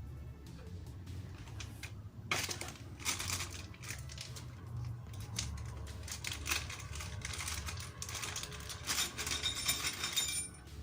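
Rapid, irregular clicks and clatter as the Armaggeddon SMK-2C mechanical keyboard is handled while being unboxed, starting about two seconds in and stopping shortly before the end, over background music.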